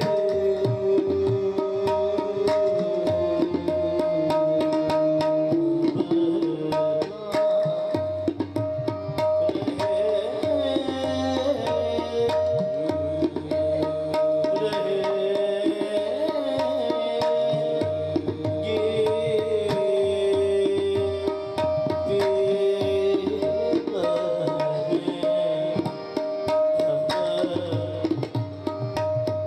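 Harmoniums and tabla playing Raag Hamir in qawwali style: a melody moving over a steady held drone note, with quick tabla strokes throughout.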